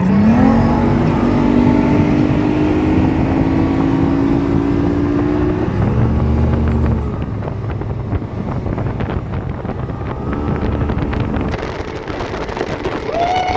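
150 hp outboard motor on a bass boat opened up to speed: its pitch rises quickly at first, keeps climbing slowly as the boat gets going, then drops about six seconds in as the throttle eases off. Wind buffets the microphone.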